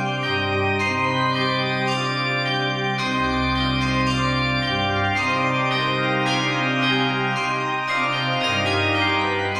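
Background music: sustained organ-like keyboard chords over a slowly changing bass line.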